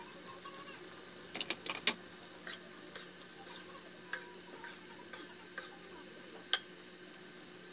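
Metal spoon stirring chicken adobo in an aluminium wok: a dozen or so clinks and scrapes of metal on the pan, irregular at about two a second, stopping shortly before the end.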